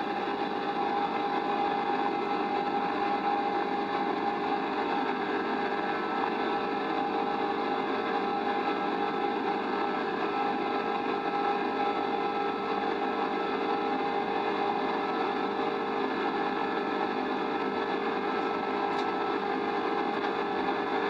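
Steady jet airliner cabin drone in flight, an even rushing noise with a few held tones that does not change.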